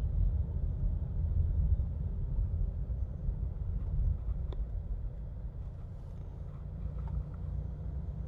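Steady low rumble of a car's engine and tyres heard from inside the cabin while driving in city traffic. It eases off a little about halfway through as the car slows.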